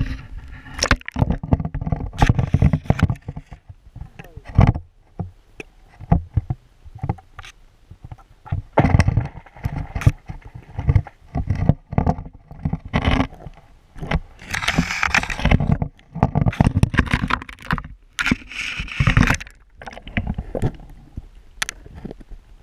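Water sloshing and gurgling around a camera's waterproof housing held underwater in an ice-fishing hole, with muffled knocks and scrapes in irregular bursts.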